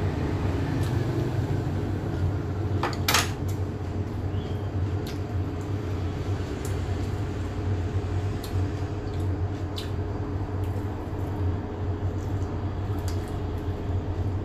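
Tableware clinking now and then during a meal: utensils tapping on plates or bowls, the sharpest clink about three seconds in, over a steady low hum.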